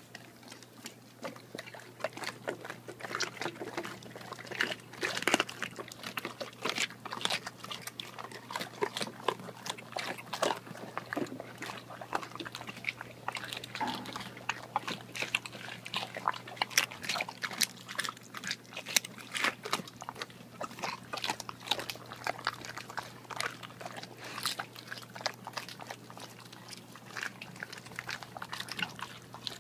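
Dogs chewing raw duck heads, crunching through the skull and beak bones in a fast, irregular run of sharp cracks and wet chews, right at the microphone.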